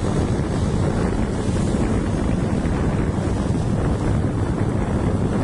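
Steady wind buffeting the microphone over a low, even engine and road rumble from a moving vehicle.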